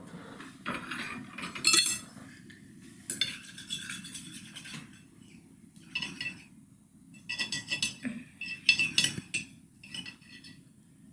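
Metal knife and fork scraping and clinking against a china dinner plate while a pancake is cut, in irregular bursts, loudest about two seconds in and again around nine seconds in.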